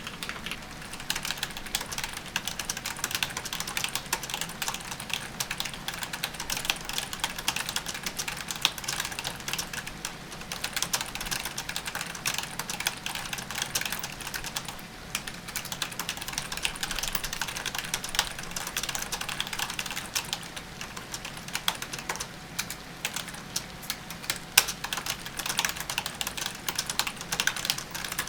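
Computer keyboard being typed on fast and continuously, a dense stream of key clicks at typing-test pace, with one louder keystroke near the end.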